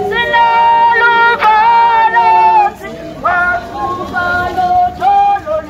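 Singing in long held notes, in two phrases with a short break about halfway through.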